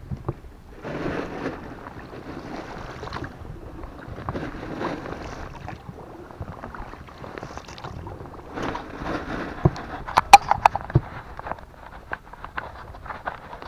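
Oars of an inflatable rowboat pulling through the water, a splashing swish about every four seconds. A quick run of sharp clicks and knocks comes about ten seconds in.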